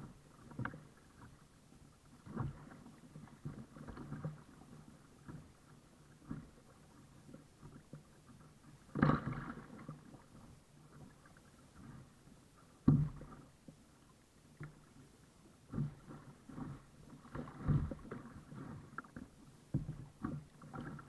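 Water splashing and slapping against a Surfetto Aloha sailing kayak's hull as it is paddled through small waves: irregular splashes and knocks, with two louder slaps about nine and thirteen seconds in.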